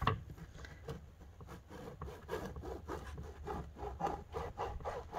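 A bread knife sawing back and forth through a seeded sourdough loaf with a flour-dusted crust: a run of short, rasping strokes.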